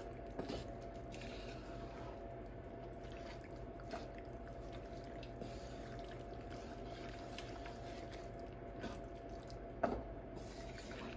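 Wooden spoon stirring penne with melted feta and tomatoes in a ceramic baking dish: soft wet squishing, with a few light knocks of the spoon against the dish, the sharpest about ten seconds in. A faint steady hum runs underneath.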